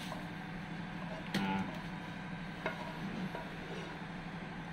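Metal spatula scraping and clinking against a wok as stir-fried pok choy is scooped onto a plate, with a louder clink about a second and a half in and a lighter one a little later, over a steady low machinery hum.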